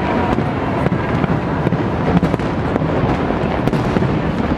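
Large fireworks display: a dense, continuous barrage of bangs and crackling from many shells bursting at once, at a steady high level.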